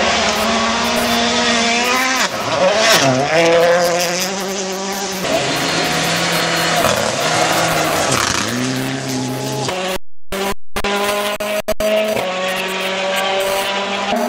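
Rally car engines on a gravel stage as cars slide past in turn. The revs drop sharply about two to three seconds in and again near eight seconds, then climb through gear changes. The sound cuts out briefly about ten seconds in, and another engine follows at a steady pitch.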